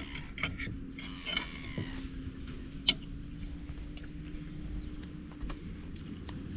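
Forks and knives clinking against plates during a meal: a few sharp, scattered clinks, the loudest about three seconds in, over a faint steady hum.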